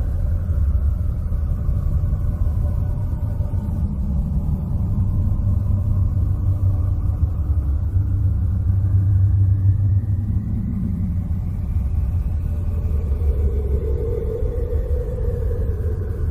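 Sonified space recording: a deep, continuous rumble with faint eerie tones slowly gliding above it. One tone falls at the start, another rises and falls again past the middle, and a wavering hum swells near the end.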